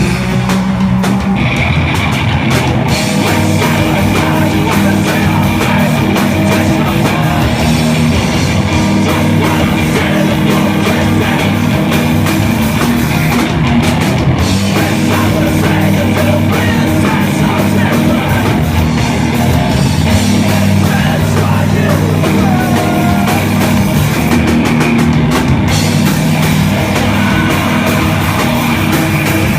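Live rock band playing loudly and continuously, with electric guitars and a drum kit.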